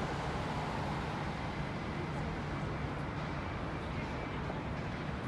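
Steady city traffic noise with a constant low hum.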